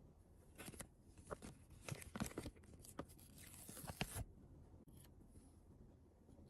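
Toy packaging being handled and opened by hand: a run of short crinkles and rustles, with a longer rustle about three to four seconds in.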